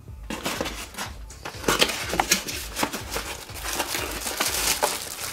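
Cardboard box flaps and plastic packaging rustling and crinkling as hands rummage through a packed box. The crackles come irregularly and grow denser and louder after about a second and a half.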